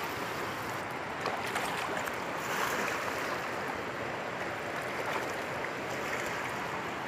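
Fast-flowing river rushing past a rocky bank: a steady wash of water noise.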